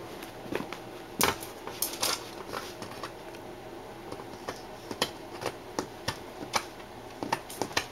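Beagle puppy's claws and teeth tapping and clicking irregularly against the glass and wooden frame of a floor mirror as it paws and mouths at its reflection.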